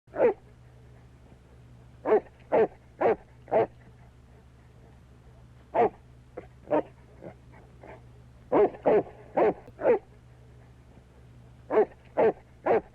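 A dog barking in runs of about four barks, with a few softer yips between the runs.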